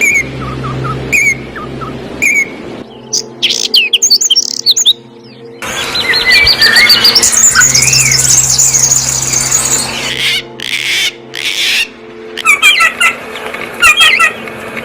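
Songbirds chirping and singing, with a dense warbling song in the middle and quick repeated chirp phrases near the end, over a steady low hum. The sound changes abruptly several times.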